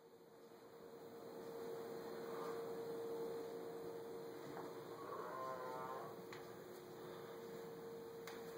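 Faint snoring: slow snores a few seconds apart, the clearest a pitched snore about five seconds in, over a steady hum.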